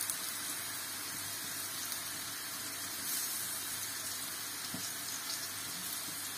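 Steady sizzle of flour-dredged fish pieces frying in hot oil in a skillet, with grated carrot frying in a second pan.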